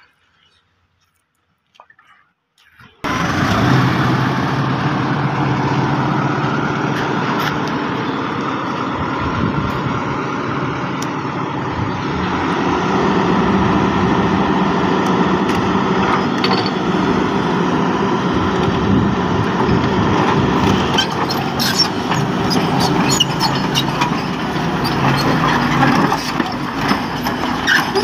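Volvo EC210D crawler excavator's diesel engine running steadily, coming in abruptly about three seconds in after near silence. Sharp metallic knocks and clanks join it through the last several seconds.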